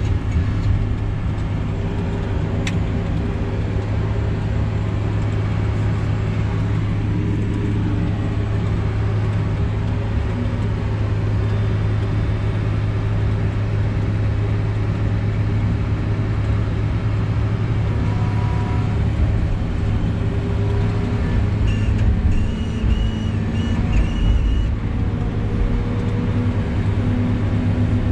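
Feller buncher's diesel engine and hydraulics running steadily, heard inside the operator's cab. A brief, broken high-pitched whine comes about three-quarters of the way through.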